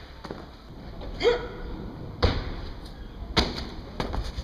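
Sharp thuds of feet landing and striking concrete in parkour moves: one hard hit a little past two seconds in, then a quick cluster of hits near the end. A short sound rising in pitch comes about a second in.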